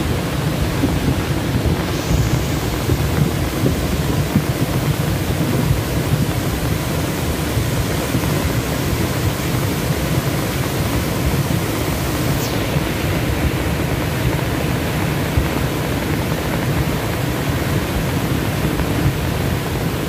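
Swollen, fast-flowing floodwater of a river in spate, rushing steadily as a loud, dense, low wash of water.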